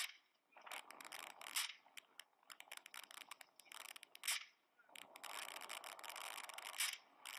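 Rifle shots fired from a boat at the water, heavily distorted in a mobile-phone recording: sharp cracks about every two and a half seconds over a rough, crackling noise.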